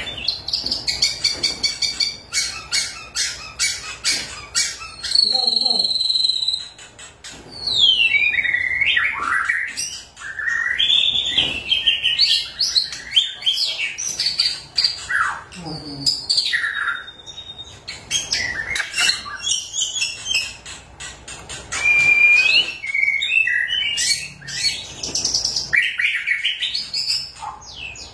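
White-rumped shama in full song: a loud, varied run of clear whistles, sharp downward-sweeping notes and rapid chattering trills, broken only by short pauses.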